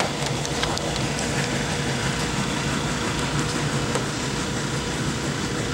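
A steady machine hum with a faint constant tone, as from a small motor running.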